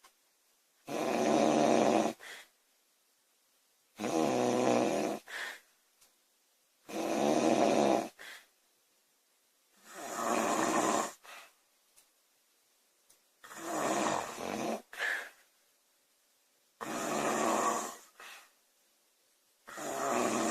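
A woman snoring loudly in a steady rhythm: a snore about every three seconds, each lasting about a second and followed by a short, softer breath.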